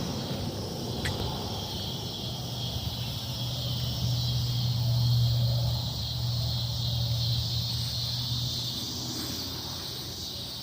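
Chorus of cicadas buzzing steadily and high-pitched, described as really loud. A low steady rumble runs underneath, swelling about halfway through.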